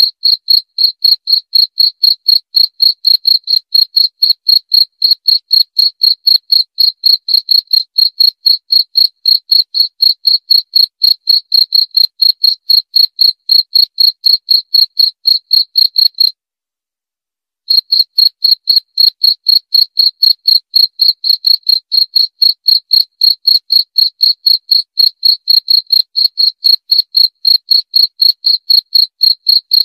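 Cricket chirping in a rapid, perfectly even pulse with a high, piercing tone. It cuts out completely for about a second just past the middle, then resumes unchanged.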